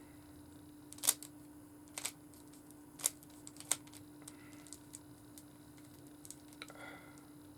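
Plastic Rubik's cube being twisted to scramble it: a few sharp clicks of the layers turning, the loudest about a second in, over a steady low hum.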